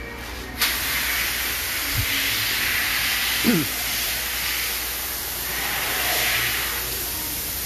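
A sustained hiss of compressed air that starts suddenly about half a second in and runs steadily for several seconds, swelling and easing slightly. There is a short thud about two seconds in and a brief falling squeak midway.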